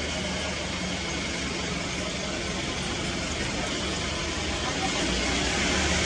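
Steady rushing noise with a low hum, like road traffic, growing a little louder near the end.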